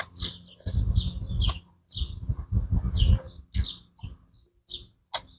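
Close-up eating sounds: wet lip smacks, slurps and chewing as spicy papaya salad with rice noodles and apple snail meat is pushed into the mouth by hand. A quick string of short, squeaky smacks, thickest in the first three seconds, stopping just before the end.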